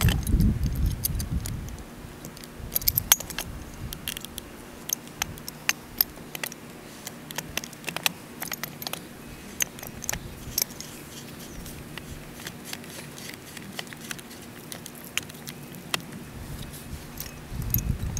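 Scattered sharp clicks and light rattles from a PVC pipe cutter being handled against PVC irrigation pipe, with a low rumble at the start and again near the end.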